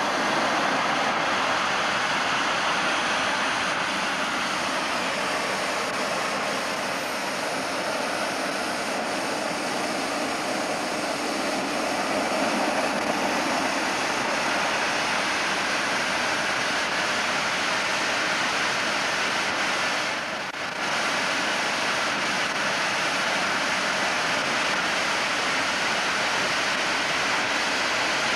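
Simjet 1200 model gas turbine (18 lb thrust) running on a test stand: a steady jet roar with a faint high whine that glides up and down in pitch. The sound dips briefly about two-thirds of the way through, then carries on.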